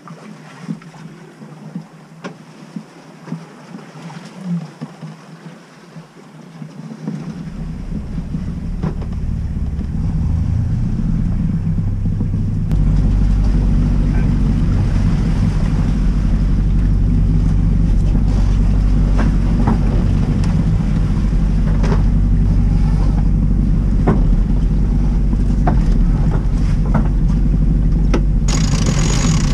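A sailing yacht's inboard engine starts up about seven seconds in. Its revs climb over the next few seconds, step up once more, and then run steadily under way. Before it there is only wind and sea wash with a few sharp knocks.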